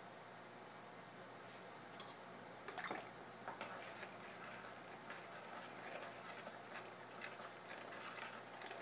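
Metal tool scraping wet clay at the foot of a tumbler spinning on a pottery wheel: faint irregular scratching from about two seconds in, loudest a little before three seconds, over a faint steady hum.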